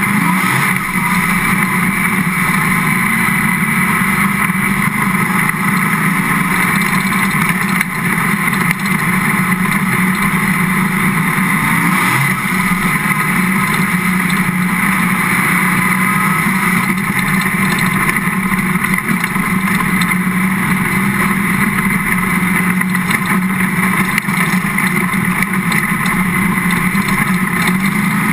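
Dirt-track race car's engine running hard under racing load, heard from on board the car: a loud, steady drone that barely rises or falls.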